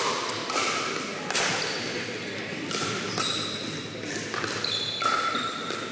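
Pickleball rally: paddles striking a hard plastic pickleball in a string of sharp hits, mixed with brief high squeaks of sneakers on the hardwood court.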